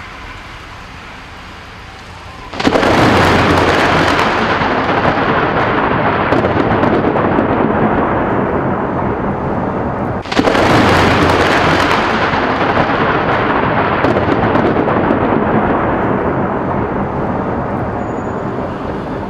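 Two close lightning strikes, each a sudden loud crack of thunder that rolls on and fades slowly over several seconds. The first comes about two and a half seconds in and the second about ten seconds in, over a steady hiss of rain.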